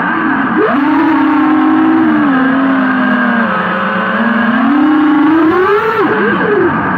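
FPV quadcopter's brushless motors and propellers whining, the pitch following the throttle: it jumps up about half a second in, sags slowly through the middle, climbs again toward the last second, then wavers up and down.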